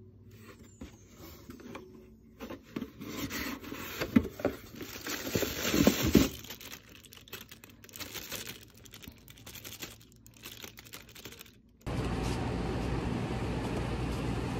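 Irregular scraping and crinkling handling sounds, loudest near the middle. About three seconds before the end they cut off suddenly, and a steady rumble of outdoor traffic takes over.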